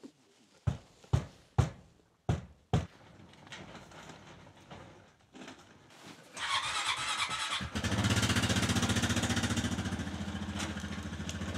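Five sharp knocks in the first three seconds, then an ATV's starter cranks for about a second and a half and the engine catches and settles into a steady idle.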